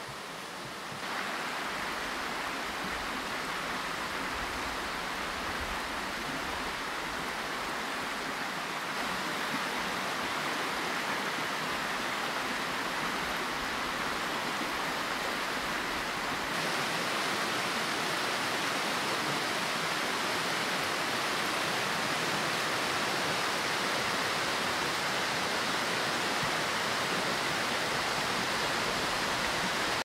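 Steady rushing of a forest stream's flowing water, with no other event standing out. It grows louder in steps about a second, nine seconds and sixteen seconds in.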